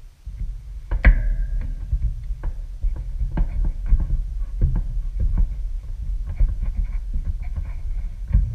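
Low, uneven rumbling of handling noise close to the microphone, with scattered clicks and taps of hands and pliers working wire connectors in an air-conditioner condenser's control panel. A sharper metallic click comes about a second in.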